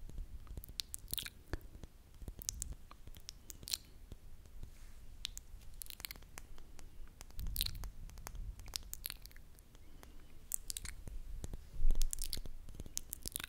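Close-miked ASMR mouth sounds: irregular wet clicks and smacks right at the microphone, with soft low rustles from a makeup brush stroked over the microphone's windscreen. The loudest is a brief low rumble near the end.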